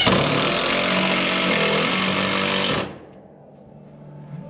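Power drill running under load as it drives screws to fasten a galvanized-metal nest box to a plywood wall. It runs for nearly three seconds, then stops suddenly.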